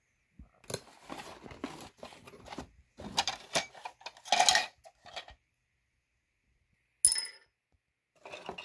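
Cardboard box and plastic parts of a model car kit being handled, a clattering rustle of light plastic and card for several seconds. About seven seconds in comes a single sharp metallic clink with a brief ring, then a little more handling near the end.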